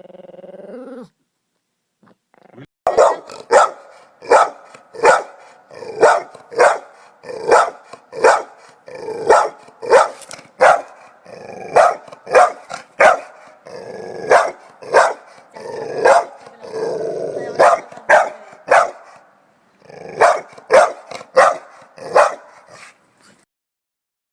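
A dog barking loudly and repeatedly, about one to two barks a second, in a long unbroken run.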